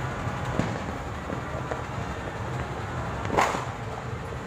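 Distant aerial fireworks popping over a steady low rumble, with one louder bang about three seconds in.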